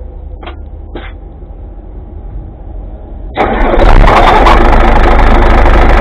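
Hino 500 truck's diesel engine cranked by the starter about three and a half seconds in, catching almost at once and then running loud and steady at idle, heard close up from above the engine. Two faint clicks come before it.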